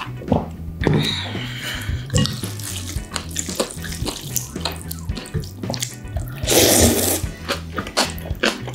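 Close-miked wet eating sounds: slurps of liquid sipped from a bowl, with a longer, louder slurp about six and a half seconds in, and many small mouth clicks. Quiet background music with a steady bass line runs underneath.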